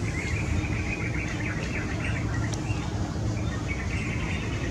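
Young white domestic geese calling with bills open, a run of quick, high, wavering calls that pauses briefly and starts again near the end. A steady low rumble runs underneath.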